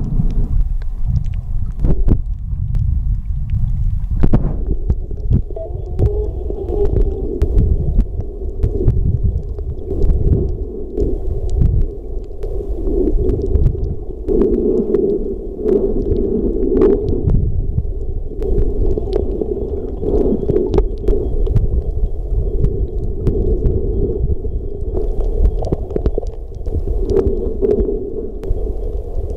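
Muffled underwater sound picked up by a camera held underwater while snorkeling: a steady low rumble of moving water with many scattered sharp clicks.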